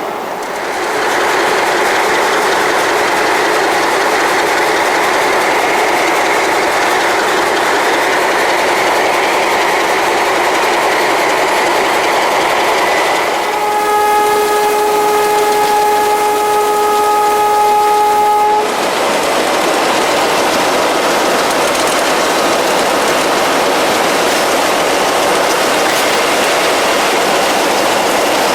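An express train clattering past on the rails, with a diesel locomotive's air horn sounding one long blast of about five seconds partway through, cutting off sharply.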